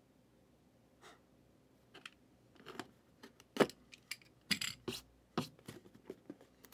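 A cardboard trading-card hobby box being handled and opened by hand: a string of short scrapes, taps and clicks starting about a second in, the loudest about three and a half seconds in.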